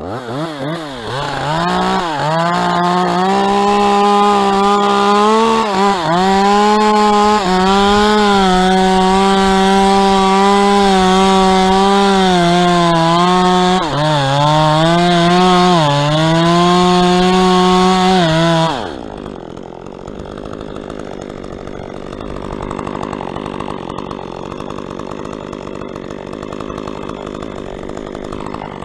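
Chainsaw cutting dead palm wood. It revs up about a second in, then runs at high, steady revs with several brief dips in pitch. About two-thirds of the way through it drops suddenly to a quieter, lower running sound.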